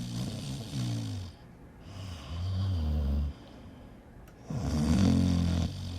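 Someone snoring, a low buzzing snore with each slow breath and short pauses between. A snore fades out about a second in, another follows about two seconds in, and a louder one begins past the four-second mark.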